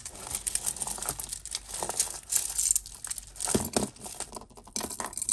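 Hands rummaging through a heap of costume jewellery: beads, chains and metal pieces click, clatter and rustle against one another in quick, irregular clicks.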